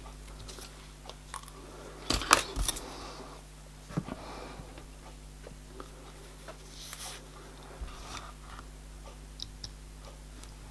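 Small hand tools and tiny brass parts handled on a workbench while miniature screws are fitted. A few sharp clicks and clatters come about two seconds in, a knock follows near four seconds, and faint ticks are scattered through, over a steady low hum.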